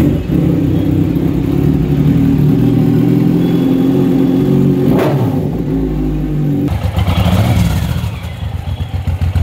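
A Kawasaki Ninja 1000's inline-four held at raised revs, steady, with a single knock about five seconds in. About two-thirds through, it gives way to the lower, pulsing, loping idle of a Suzuki Intruder M1800R's 1800 cc V-twin through its twin exhausts.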